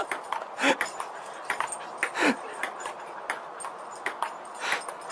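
A dog making two short calls that fall in pitch, about a second and a half apart, among many quick clicks and taps.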